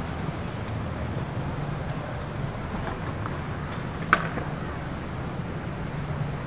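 Steady low rumble and hiss of a bicycle ride, with one sharp click about four seconds in.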